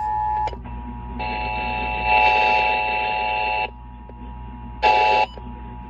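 Emergency Alert System data tones ahead of a required monthly test: a harsh electronic burst lasting about two and a half seconds, then a short burst about a second later.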